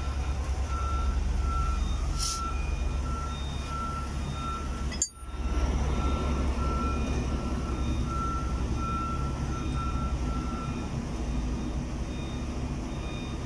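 A heavy machine's engine running with a steady low rumble, over which a reversing alarm beeps repeatedly, about twice a second, until it stops about eleven seconds in. The sound drops out for a moment about five seconds in.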